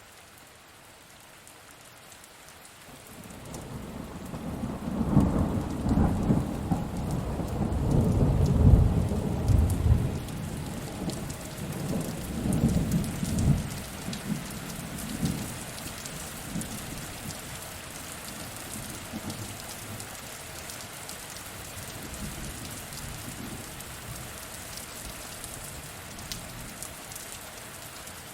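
Steady rain with a long roll of thunder that swells a few seconds in, peaks about a third of the way through and rumbles away. The rain carries on alone after it.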